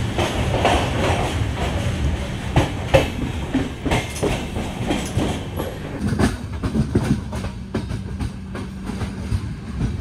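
Passenger train coach rolling out of a station at low speed, heard from its open doorway: a steady rumble with irregular clicks and clacks of the wheels over the rails.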